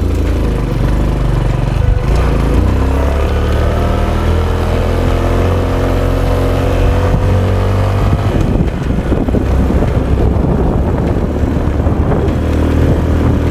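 Honda XRM 125 Dual Sport's single-cylinder four-stroke engine pulling away and accelerating, its pitch rising over several seconds; from about eight seconds in the sound turns rougher and noisier.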